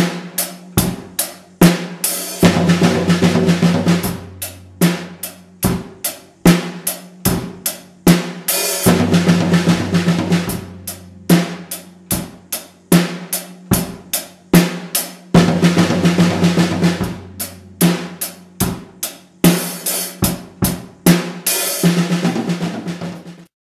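Drum kit playing a steady beat broken every few seconds by fast 16th-note triplet fills of the Swiss Army triplet rudiment, moving across the snare, small tom and low tom. The playing stops suddenly near the end.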